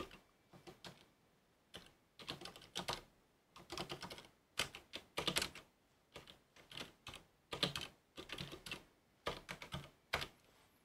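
Computer keyboard typing in uneven runs of keystrokes, with short pauses between the runs.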